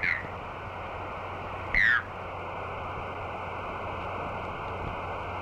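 Steady hiss of an open radio channel, with one short chirp falling in pitch about two seconds in.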